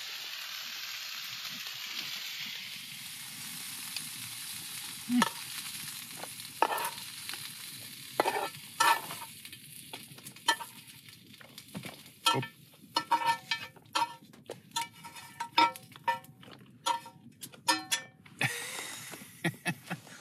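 Potatoes, onion, bacon and sausages sizzling in a hot metal frying pan, with a fork or spoon scraping and clinking against the pan. The sizzle is strongest in the first half and dies down. After that, sharp ringing clinks of the utensil on the pan come thick and fast.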